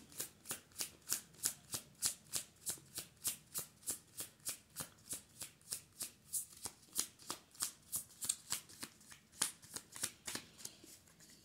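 Tarot deck being shuffled by hand: an even run of soft card slaps, about three to four a second, that stops shortly before the end.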